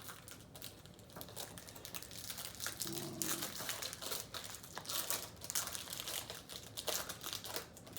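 Topps Chrome trading cards being handled and flipped through, with irregular rustling and crinkling from the cards and their pack wrapper.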